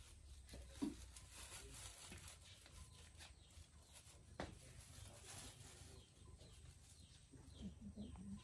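Near silence: faint ambience with a few soft knocks, the clearest about a second in and again near the middle, and some short faint sounds near the end.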